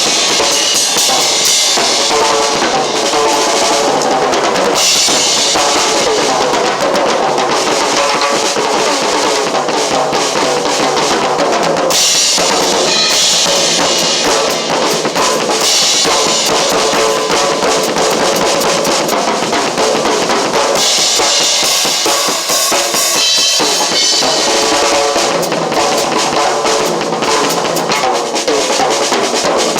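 Drum kit played continuously at a steady loud level, with bass drum, snare and cymbals.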